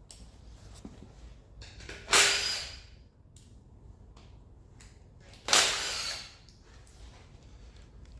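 Two loud hissing bursts from a workshop tool, each under a second long and about three seconds apart, with light clicks and knocks of work on the engine between them.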